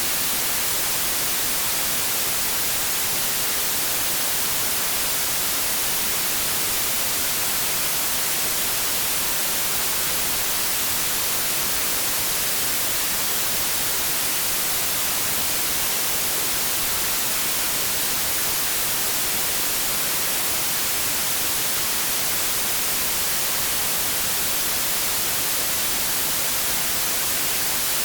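Steady white-noise static: an even hiss that never changes, brighter and stronger in the high pitches than the low.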